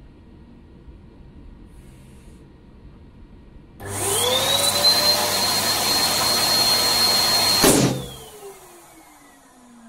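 Electric balloon pump switched on about four seconds in, its motor whine rising and then running steadily as it inflates a 12-inch crystal latex balloon. Near the end the balloon bursts with a sharp pop, the blowing noise cuts off, and the motor's whine falls away as it winds down.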